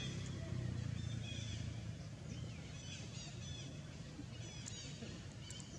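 Short high-pitched chirping calls, many in quick succession, over a low rumble that fades after about two seconds.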